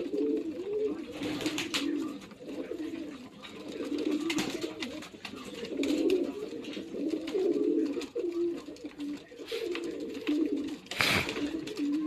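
Domestic pigeons cooing, several birds overlapping in a continuous low warble, with a few sharp knocks or flaps, the loudest about eleven seconds in.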